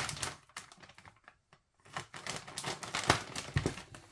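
Scissors snipping through the stiff plastic bag of frozen doner kebab meat, the packaging crinkling and crackling as it is cut. A run of short clicks and crackles at the start, a brief pause about a second in, then more snips and crackles.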